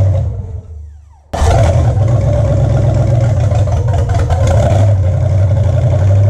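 Rebuilt Chevy 305 small-block V8 being test-run. The engine dies away over the first second, then runs again suddenly a little over a second in and keeps running steadily.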